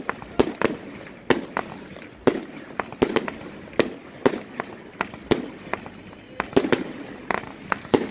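Aerial fireworks being fired: an irregular run of sharp bangs, two to three a second, as shots launch and burst overhead.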